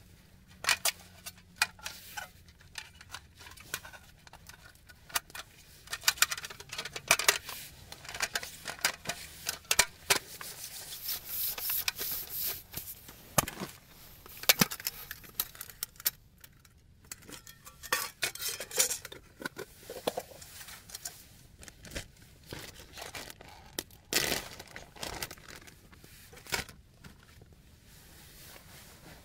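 An iClimb mini folding camp table being set up: its aluminium slats and leg frames click, rattle and knock at irregular moments, with a few louder clacks, and some rustling of fabric and bags in between.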